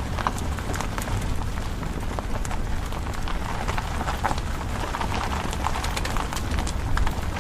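Car driving on a dirt road: a steady low rumble under the tyres with many small crackles and pops of grit and loose stones.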